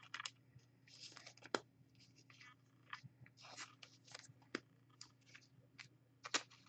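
Faint, irregular clicks and scrapes of trading cards being handled, slid against one another and tapped down onto a stack.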